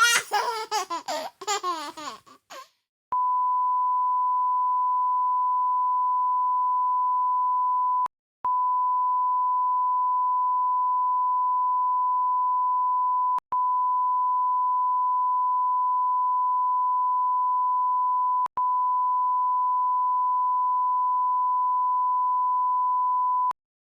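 Voices and laughter for the first couple of seconds, then a steady electronic beep tone at about 1 kHz. The tone runs for about twenty seconds, broken by three very short gaps into four even stretches.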